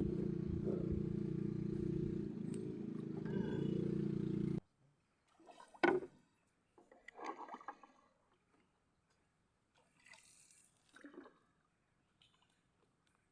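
A motor runs with a steady low hum, then cuts off abruptly about four and a half seconds in. A few faint, scattered clicks and knocks follow, the sharpest about six seconds in.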